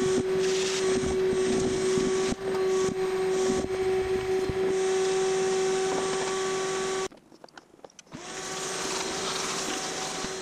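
Shop vacuum running steadily while its hose sucks decades of dust out of a bandsaw, with the nozzle knocking against the saw's metal now and then. The vacuum cuts out abruptly about seven seconds in, then spins back up a second later and runs until near the end.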